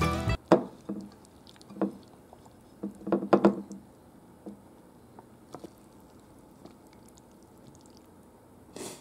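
Background music that cuts off just after the start, then scattered clicks and soft knocks of chopsticks and food being handled and set onto ceramic plates. The busiest cluster is about three seconds in, and after it only faint ticks are left.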